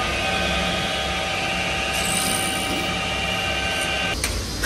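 Metal lathe running at a steady speed, its motor and gears giving a steady whine of several tones; it cuts off near the end.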